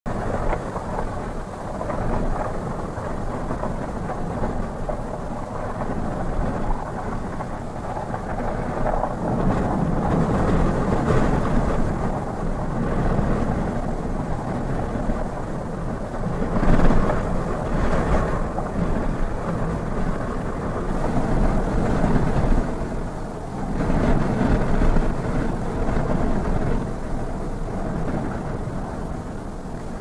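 Strong gusting wind buffeting a car, heard from inside the cabin: a continuous rumble that swells and eases in waves, with the strongest gust about 17 seconds in.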